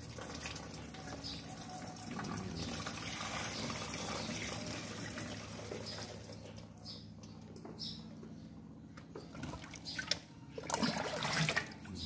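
Thick fermented swiftlet-dung liquid poured from a plastic scoop into an electric sprayer's tank: a steady pouring splash that tapers off. Near the end comes a louder slosh as the scoop is dipped back into a barrel of the liquid.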